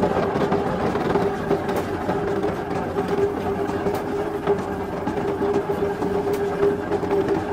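Factory machinery running steadily with a constant droning hum and a few faint ticks.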